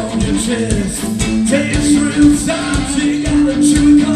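Live hard southern rock band playing: drums keeping a steady beat under electric guitars and bass guitar, with one held note sounding through the second half.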